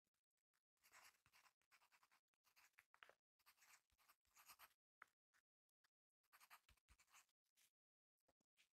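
Faint scratching of a graphite pencil on paper, in short strokes with brief breaks as letters are written.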